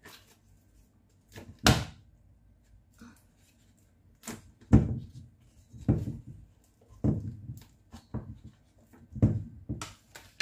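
Pieces of butter cut with a kitchen knife and dropped into a stainless steel mixing bowl, giving a series of about seven dull thuds, roughly one a second.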